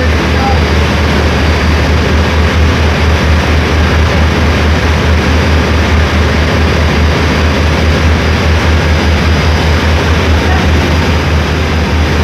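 Passenger ferry's engine running steadily, a heavy low drone, with the rush of the churning wake behind it.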